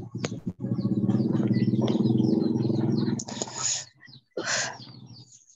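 Birds chirping over a steady low drone that stops about three seconds in, followed by a couple of short hissy bursts, picked up by an open microphone on a video call.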